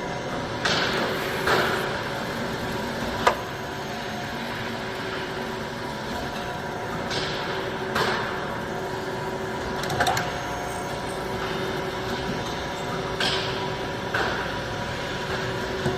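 Metalworking machine running with a steady hum of several fixed tones, from a milling machine or drill. Brief sharp cutting noises come in every second or few, with a single sharp click about three seconds in.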